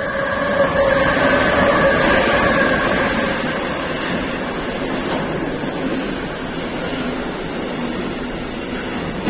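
Freight train hauled by two SNCB Class 13 electric locomotives passing close by. A tone that falls slightly fades over the first three seconds as the locomotives go by, then comes the steady rumble of the container wagons rolling past.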